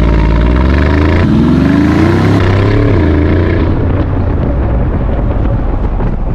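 Brabus-tuned Mercedes G63's 5.5-litre twin-turbo V8 accelerating hard, its pitch climbing, dropping at an upshift about a second in and climbing again until about three seconds in. After that the engine eases off under steady wind and road noise.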